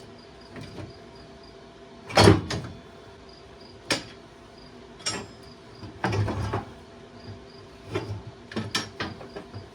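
A string of separate metal knocks and clanks, about seven of them and the loudest about two seconds in, from hand tools and parts being worked on a skid steer. A faint, steady cricket chirp runs underneath.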